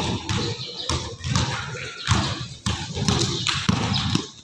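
Basketball being dribbled on an indoor court floor: a string of thudding bounces at an uneven pace as the player drives, sounding in the open space of a large gym.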